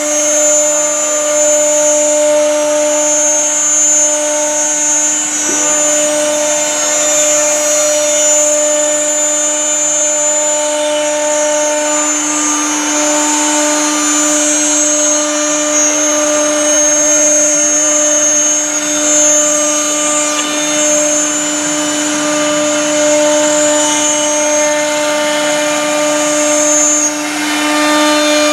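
A PM1325 CNC router's spindle running at a steady speed while its bit engraves wood. It gives a constant pitched hum with a high whine over it, and a steady cutting noise underneath.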